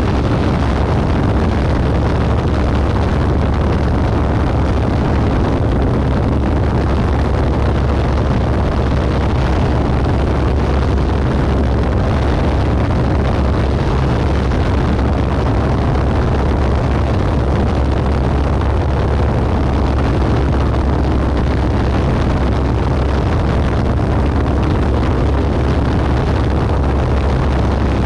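Single-engine propeller airplane in flight: the engine and propeller run at a steady drone, mixed with heavy wind rush on the outside-mounted camera's microphone.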